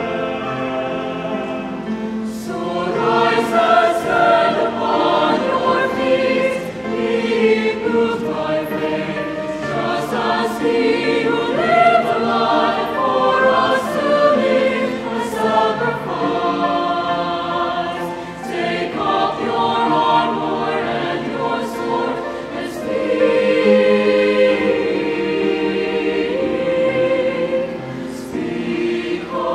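Mixed choir of men's and women's voices singing in harmony, phrases swelling and easing.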